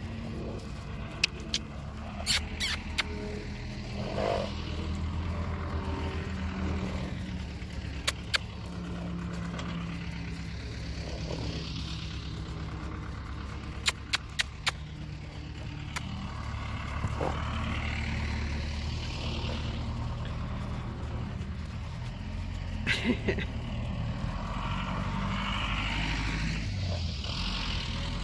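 Tractor engine running steadily, a low drone, with a few short sharp clicks at scattered moments.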